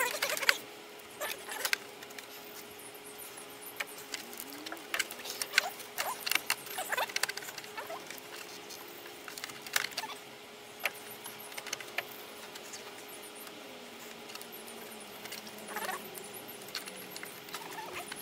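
Hand work in a car's engine bay: scattered small clicks, clinks and squeaky scrapes of tools and plastic parts, over a faint steady hum.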